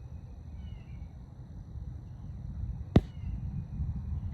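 Glock 43 pistol firing 9mm full metal jacket rounds: one sharp shot about three seconds in and a louder one right at the end, ringing on after.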